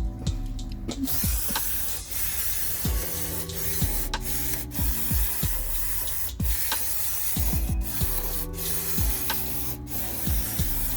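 Pressurised spray hissing in several long bursts with short breaks between them, over background music.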